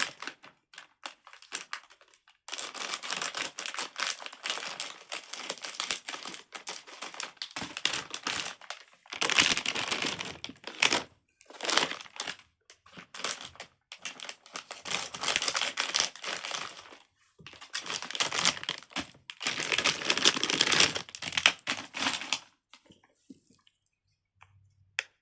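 Packaging crinkling and rustling in irregular bursts as it is cut and torn open, for about twenty seconds.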